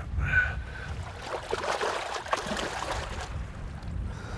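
Shallow river water splashing and lapping around an angler's hands and waders as he holds a freshly unhooked Arctic char in the water to release it, with wind buffeting the microphone.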